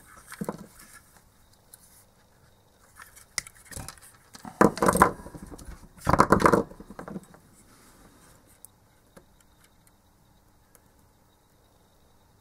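Tools being handled on a workbench: a few short clattering, scraping noises, the two loudest about four and a half and six seconds in, then only faint ticks.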